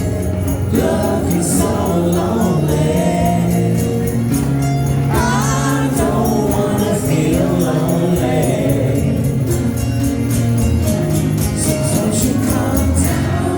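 Live acoustic band playing a rock song: steadily strummed instruments and singing with several voices.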